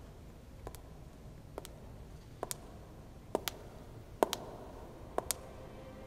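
About ten short, sharp clicks at irregular intervals, several in close pairs, louder around the middle, over a faint low rumble.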